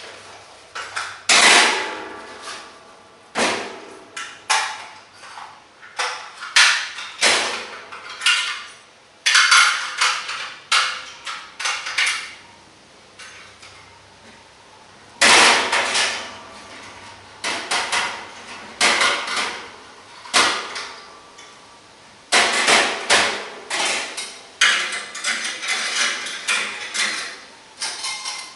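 Metal camping cookware and gear clattering and knocking on a stainless-steel table as it is handled: a string of irregular sharp knocks and clinks, with a quieter pause a little before the middle.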